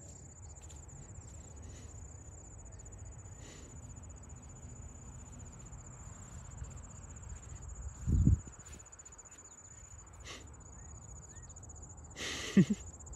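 A steady high-pitched chorus of trilling insects, with a low rumble on the microphone underneath. Two short louder noises break in, a dull knock about eight seconds in and a brief rustling burst near the end.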